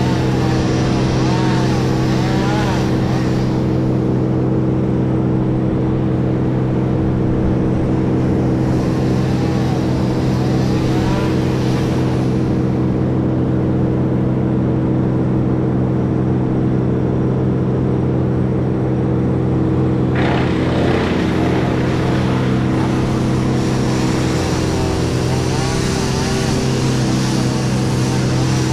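Heavy diesel engine running steadily at a constant speed, with a whine that wavers up and down in pitch at intervals, rising and falling as the machine is worked.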